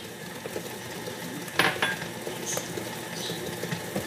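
KitchenAid stand mixer running steadily, beating cookie dough of butter, sugar and eggs, with a couple of short clinks of dishware about a second and a half in.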